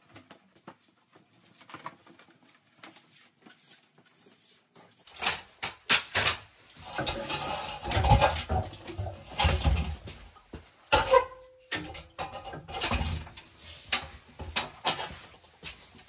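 Scattered clicks, then a run of clattering knocks and bangs of old water-softener plumbing and piping being pulled apart and removed, busiest about five to ten seconds in.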